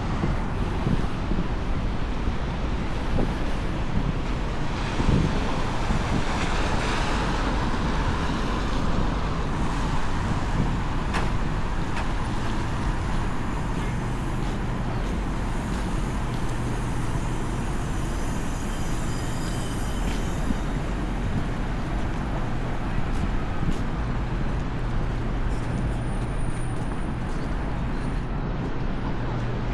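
Steady downtown street traffic noise: a continuous hum and rumble of passing cars and buses.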